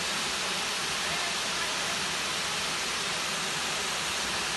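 Steady rushing roar of falling water from a waterfall.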